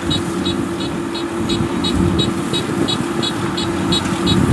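Kubota PRO75G combine harvester's 75-horsepower engine running steadily while it harvests. A short high chirp repeats evenly about three times a second throughout.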